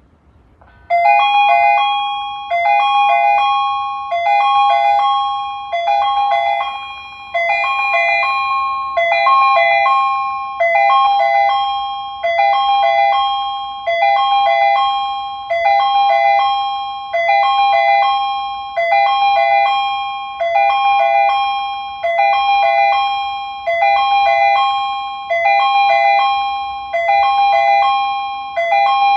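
Japanese railway platform approach chime on the Tobu Isesaki Line, announcing an approaching train: a short phrase of bell-like electronic tones starting about a second in and repeating over and over, about every one and a half seconds.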